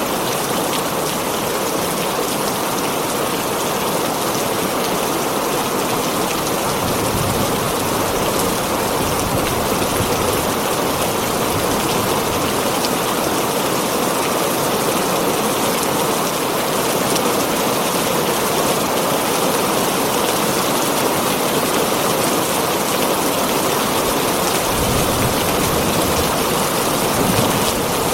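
Heavy rain drumming steadily on a tin roof, with brief low rumbles partway through and near the end.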